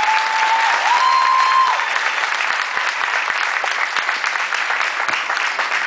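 An audience applauding steadily for a piano performance. In the first two seconds a two-note whistle, stepping up in pitch, rises over the clapping.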